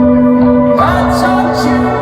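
Live rock band playing: a held chord rings steadily, then the full band comes in louder and denser about three-quarters of a second in.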